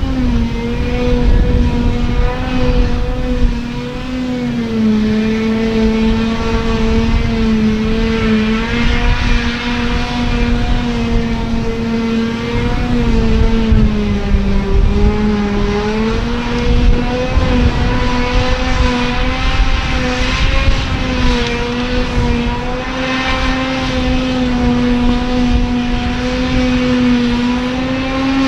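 Claas Jaguar 940 self-propelled forage harvester running under load as it chops grass: a steady, loud machine drone with a strong hum that dips slightly in pitch about five seconds in and again around the middle.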